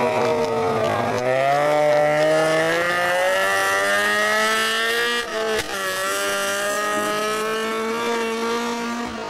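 Renault Clio rally car's four-cylinder engine accelerating hard out of a tight bend. The revs climb steadily for about four seconds, drop briefly at a quick upshift just past halfway, then rise again as the car pulls away.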